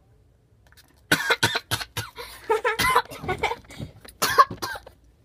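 A child coughing and spluttering in a rapid run of bursts, mixed with short voiced cries, starting about a second in: a reaction to a squirt of sour spray candy in the mouth.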